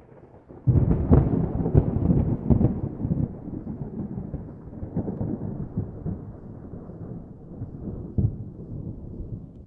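Thunder: a sudden crack about a second in, then a long low rumble that rolls on and slowly fades, with a fresh swell near the end.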